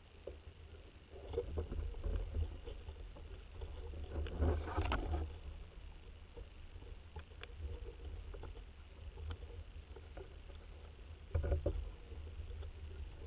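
Water heard through an underwater camera's housing: a steady low rumble with crackling, clicking and sloshing that comes in bursts, loudest about four to five seconds in and again briefly near the end.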